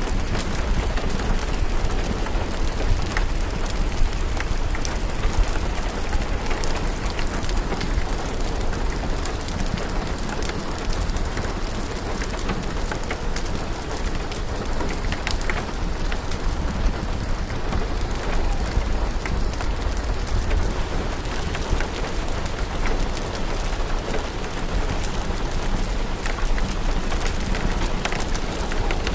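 Steady rain falling, a dense even patter with many small scattered ticks and pops, mixed with the crackle of a fireplace fire, over a steady low rumble.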